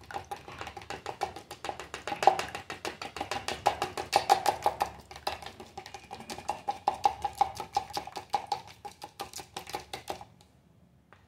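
Spoon stirring quickly to mix aloe vera gel with coconut oil: rapid clicking against the container, several strikes a second, with a faint ring. It stops about ten seconds in.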